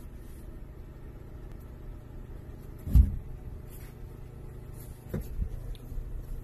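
Two house cats scuffling on a tiled floor: one loud low thud about three seconds in, then a couple of softer bumps a little after five seconds, over a steady low rumble.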